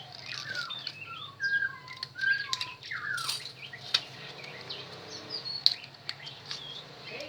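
Small birds chirping and twittering, many short rising and falling calls, with a few sharp clicks in between.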